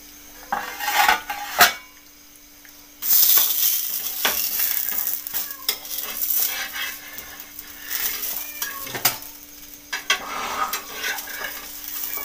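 Tur dal kondale (a flatbread) frying in oil on a flat griddle (tawa), sizzling, with a metal spatula scraping and clinking against the pan. There are a few sharp clinks in the first seconds, and the sizzle turns louder and steady from about three seconds in.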